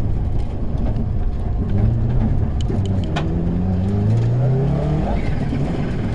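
Rally car engine heard from inside the cabin, running hard under acceleration. Its note climbs in pitch twice with a drop in between, over a constant rumble of road and wind noise. A few sharp clicks come about three seconds in.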